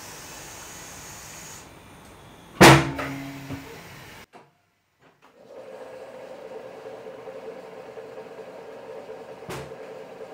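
Tyre-shop work: a hiss that stops, then a single loud metallic clang that rings briefly. After a second of dead silence a steady machine hum sets in, with one sharp click near the end.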